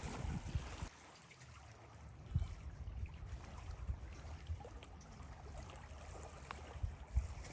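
Rain falling with water trickling and dripping, under irregular low thumps and a few faint ticks.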